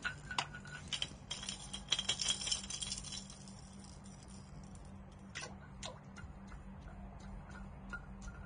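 Small irregular clicks, a few a second, from a spinning reel being cranked to work a jerkbait, with a short burst of splashing about one to three seconds in as the lure is pulled up out of the water. A low steady hum runs underneath.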